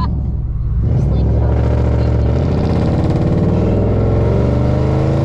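2001 Toyota Tundra with straight-piped true dual cat-back exhaust, accelerating under throttle. The exhaust gets louder about a second in, then rises steadily in pitch as the engine revs up.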